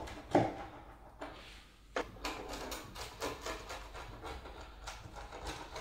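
A thin-crust pizza being sliced on a wooden board, first with a knife and then with a rolling pizza wheel: crackling crust and knocks of the blade on the wood, the sharpest knock about half a second in, then a run of short crunchy strokes.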